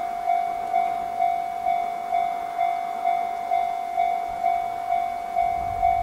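Japanese railway level-crossing warning bell starting suddenly and ringing a steady, evenly repeated ding, about two strikes a second, the signal that a train is approaching the crossing.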